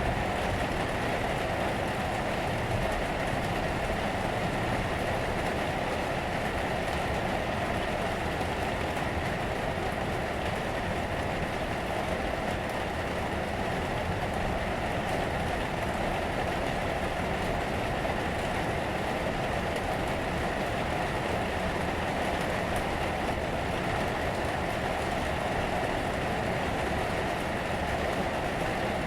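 Steady, continuous rain on the roof, heard from inside an attic.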